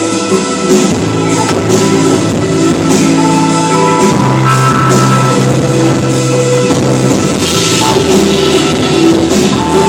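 Music with guitar and drums, rock-like, playing steadily.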